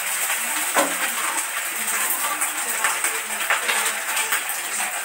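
Fried rice frying in a pan, a steady sizzle with the spatula scraping and clacking against the pan as it is stirred.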